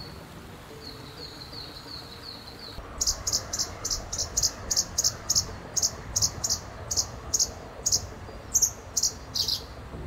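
Male russet sparrow chirping over and over, short loud chirps at about two to three a second, starting about three seconds in. Before that, faint quick high notes of another bird sound over shallow running water.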